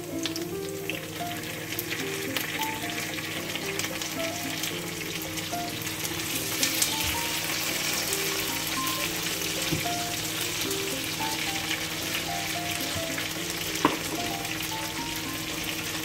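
Sliced onions and tomatoes sizzling steadily in hot oil in a frying pan, a little louder partway through.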